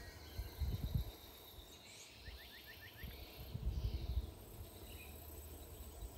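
Quiet riverside ambience: a quick run of five or six short bird-like chirps about two seconds in over a faint steady insect hum, with two brief low rumbles, near one second and near four seconds.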